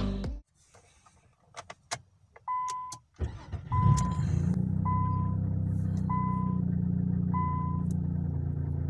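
A 2000 Nissan Maxima's 3.0-litre V6 starting on a newly fitted starter motor: a few clicks, a short crank, then the engine catches about three seconds in and settles into a steady idle. A warning chime dings about once a second through it.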